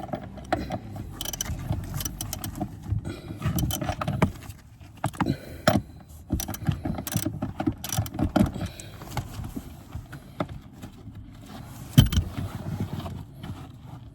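Irregular metallic clicks, clinks and knocks of a ratchet and socket working at a car seat's floor-mounting bolt, with one loud knock about twelve seconds in.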